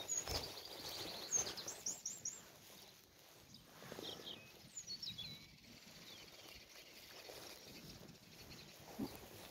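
A small songbird singing: a quick run of four or five high, down-slurred notes around two seconds in, then a few scattered chirps a couple of seconds later. A couple of soft knocks come in the first second and a half, over a faint steady background hiss.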